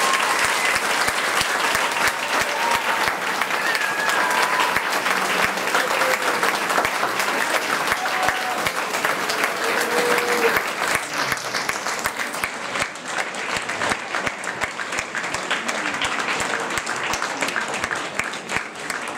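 Audience applauding: a dense patter of many hands clapping, easing off a little about two thirds of the way through.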